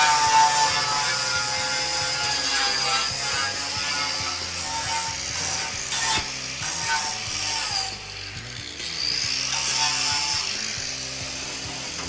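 Angle grinder grinding down weld bumps on a steel sculpture, with a whining pitch that wavers as the disc bears on the metal. It eases off briefly around eight seconds in, then grinds again.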